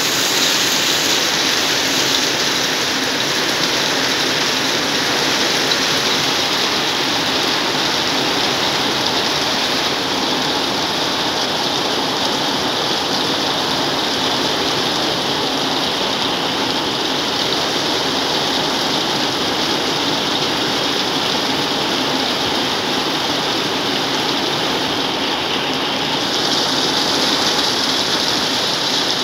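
Heavy tropical rain pouring down, much of it onto corrugated metal roofing, in a loud, steady, unbroken hiss.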